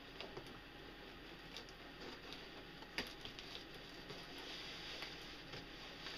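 Faint scraping and light clicks of a knife cutting into the tape and flaps of a cardboard box, with one sharper click about three seconds in.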